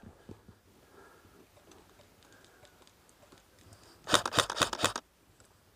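Airsoft electric rifle (KWA ERG) firing one full-auto burst of about a second, about four seconds in: a rapid string of sharp mechanical shots, roughly a dozen.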